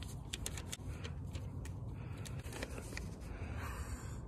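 A folded sheet of notebook paper being handled and unfolded: a run of quick crinkles and crackles, thickest in the first couple of seconds, over a low steady rumble.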